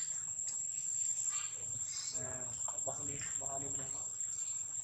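Insects keep up a steady high-pitched drone in the forest. From about two seconds in, people's voices talk indistinctly in the background.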